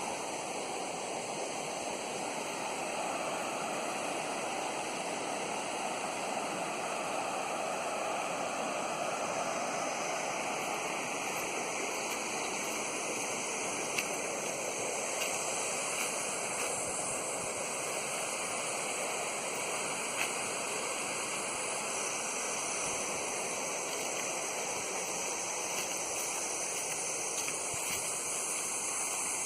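Flowing stream water rushing steadily, with a few faint ticks over it.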